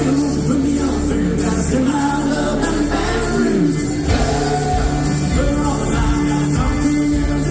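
Band music with a lead vocal singing over a steady bass line.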